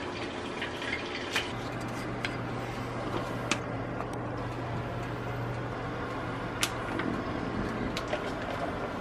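Tap water running steadily at a sink during fish filleting, with a low hum for a few seconds in the middle and a few sharp clicks of the knife.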